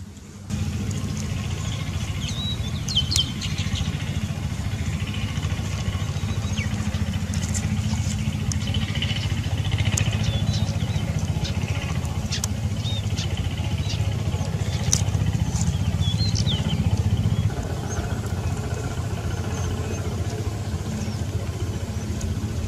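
A steady low rumble starts suddenly about half a second in and carries on, with small birds chirping now and then over it.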